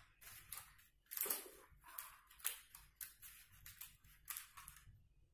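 Thin clear plastic tray crinkling in a series of short, irregular rustles as a hand rummages in it among loose pistachio shells.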